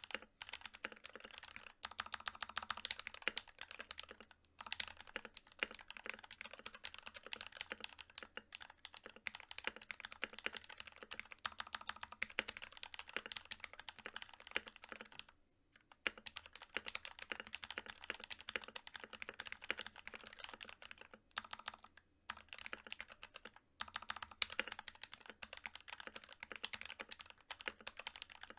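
Fast, continuous typing on an NK65 Milkshake Edition mechanical keyboard with prelubed NK_ Silk Yellow linear switches and PBT keycaps on an aluminium plate, a quick run of key clacks broken by a few brief pauses, the longest about halfway through.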